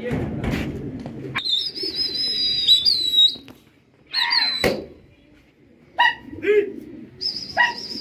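Long, high, wavering whistles, one starting about a second and a half in and another near the end. Short, sharp bird calls come in between, with rough wind-like noise at the start.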